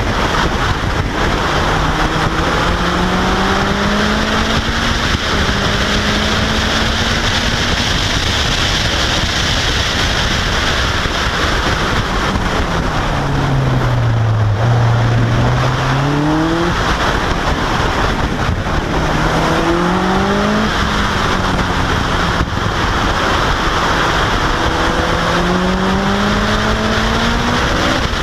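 Caterham R400's engine pulling hard through the gears, revs climbing and dropping back at each upshift. About halfway through the revs fall away as the car slows for a tight corner, then it accelerates and shifts up again. Heavy wind rush on the microphone of the open car runs under it all.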